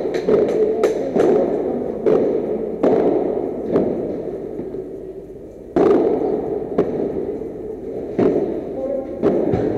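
Padel ball being struck by rackets and bouncing off the court and glass walls in a rally: sharp hollow cracks at an irregular rhythm, with a brief lull in the middle before a loud hit.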